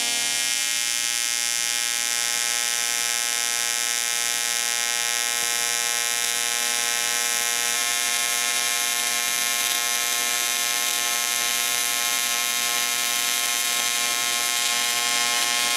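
HTP Invertig 221 AC TIG welding arc on a cast aluminum water-pump housing, a steady even buzz as filler rod is fed into the weld.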